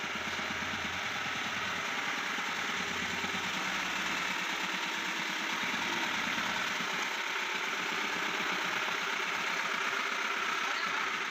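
An engine idling steadily, with an even low pulsing.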